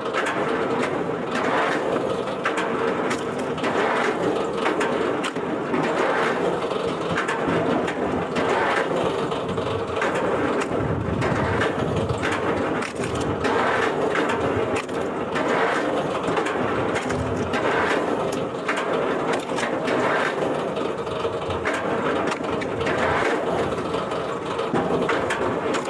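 Heavy wood-processing machinery running, a steady hum with a noisy crunching surge about every one to two seconds as wood is fed through.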